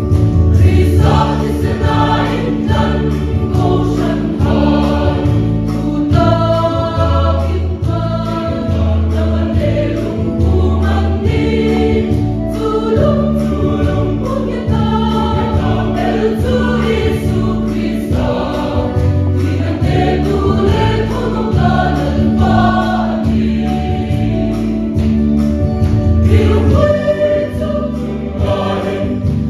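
A choir singing a Christian song over instrumental accompaniment, with a steady bass pattern keeping a regular beat.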